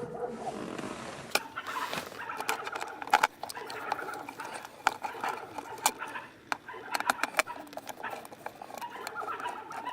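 Scattered sharp clicks and knocks of hard plastic console parts being handled and worked loose, as pieces of the console lid hinge are taken off to free its spring.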